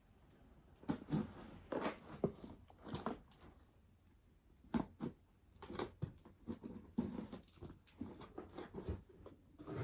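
Irregular scratching, rustling and clicking of packaging being handled and worked open by hand.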